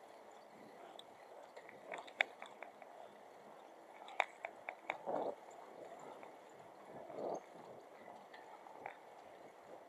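Faint steady background ambience broken by scattered sharp clicks and taps: a single click about two seconds in, then a quick run of four about four seconds in. Two short rustling swells follow, about five and seven seconds in.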